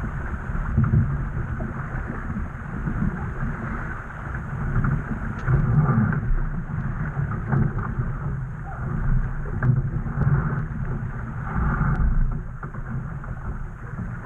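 Wind buffeting the microphone over water rushing and splashing along the hull of a Laser Vago sailing dinghy under way. The noise swells and eases every second or two, with a few faint clicks.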